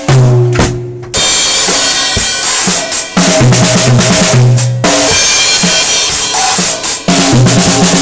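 A drum kit played loudly, with cymbals crashing over kick and snare hits. The beat breaks off and restarts abruptly several times.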